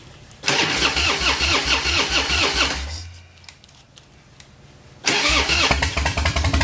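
Choke-equipped old car engine being started: it turns over and runs for about two and a half seconds, winds down and dies, then fires up again about five seconds in and keeps running.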